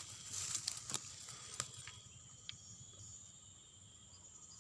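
Steady high-pitched insect chorus, with several sharp clicks and rustling in the first two seconds.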